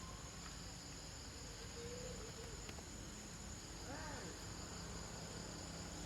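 Steady high-pitched drone of insects, with a faint short call rising and falling about four seconds in.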